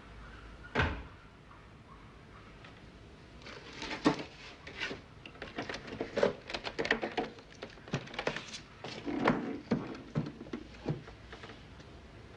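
Cardboard box and packing being handled as a small portable television is unpacked. There is a single knock about a second in, then from about three seconds on a busy run of clunks, scrapes and rustles.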